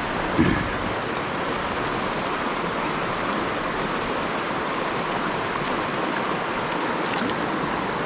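Shallow mountain-stream riffle rushing steadily. A brief low thump comes about half a second in.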